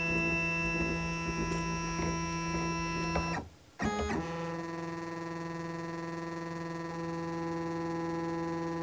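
Shapeoko Pro CNC router's stepper motors whining as the machine moves the router to the BitSetter to measure the newly loaded surfacing bit: a steady whine of several tones together. It stops about three and a half seconds in, resumes at a different pitch, and cuts off again near the end.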